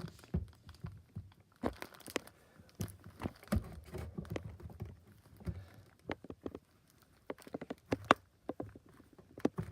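Chunky homemade slime being handled and pulled apart, making irregular crackling, popping clicks.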